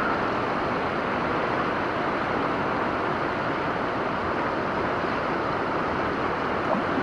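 Steady rushing of fast river water over rocky rapids, an even wash of noise with no breaks.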